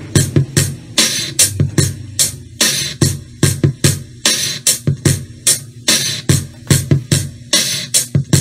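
A V2S double 8-inch Bluetooth party speaker playing a bass-and-treble sound-check beat: a steady electronic drum pattern of deep bass kicks and sharp, bright high-pitched hits, about two to three a second.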